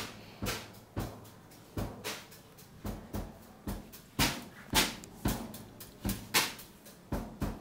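Footsteps on a hard tiled floor, a sharp click about twice a second in a steady walking rhythm, louder from about four seconds in.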